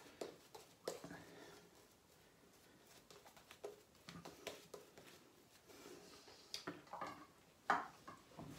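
Faint, irregular short scraping strokes of a wet shave working over lathered stubble, with small clicks between them.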